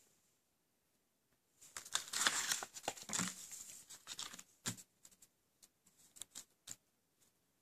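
Paper leaflet rustling and crinkling as it is pulled out of a plastic Blu-ray case and handled, starting about two seconds in, followed by a few light taps and ticks as it is laid down.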